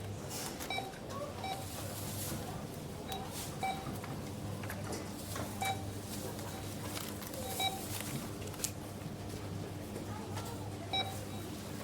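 Supermarket checkout barcode scanners beeping: short, identical beeps, about eight of them at uneven intervals, over a steady low hum of the store.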